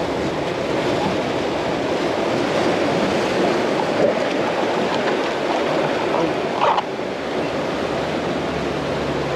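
Steady wash of ocean surf on the shore.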